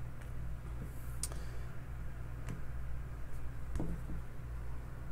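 A handful of light, sharp clicks and taps spaced irregularly, about half a second to a second apart, from hands handling hard plastic card cases and a computer mouse, over a steady low hum.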